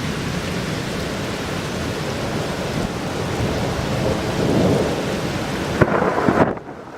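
Steady heavy rain with rumbling thunder from a lightning storm, swelling about four seconds in, with a sharp crack of thunder near the end before the sound drops away suddenly.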